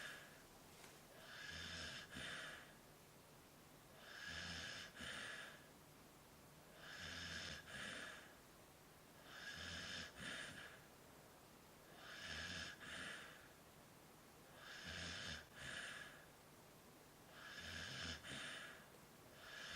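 A Samoyed dog's noisy breathing in a slow, even rhythm: a breath about every two and a half seconds, each in two parts.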